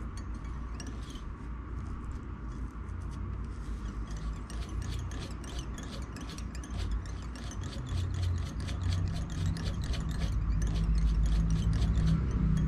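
Bobbin of red thread being whirled round the collar of a bucktail jig, the spool clicking and ticking in a rapid, uneven run as thread pays off and wraps on. A low rumble grows louder toward the end.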